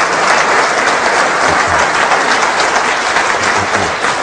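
An audience applauding, a dense, steady clapping throughout.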